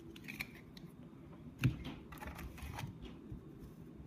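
Pinnacle hockey trading cards being handled and sorted by hand, with light rustling and small taps as cards slide over one another. One sharper tap comes about a second and a half in.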